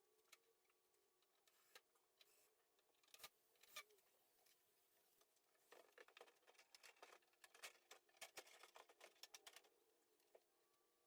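Near silence, with faint scattered clicks and taps that come thicker in the second half.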